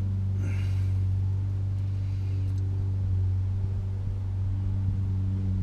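A steady, low machine hum with no change in pitch, with brief faint rustles about half a second in and again about two seconds in.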